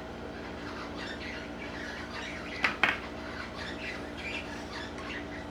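Birds chirping and squawking in the background over a steady low hum, with two sharp crunches about halfway through: a bite into a crispy rolled wafer stick.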